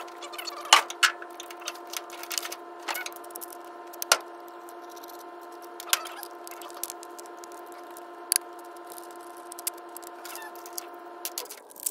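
Scattered clicks and knocks of metal and plastic kayak-rack parts and hardware being handled and set down on a truck bed, over a steady hum.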